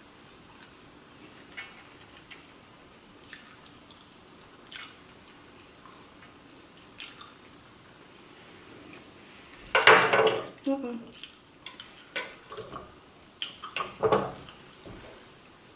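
Close-miked eating of fried chicken wings and shrimp: small wet clicks and smacks of chewing, with a louder spell of mouth sounds about ten seconds in and more around thirteen to fourteen seconds.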